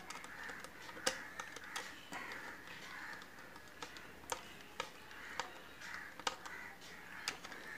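Screwdriver working a terminal screw on a plastic switch board: faint, irregularly spaced clicks and ticks, about ten in all, with light handling noise.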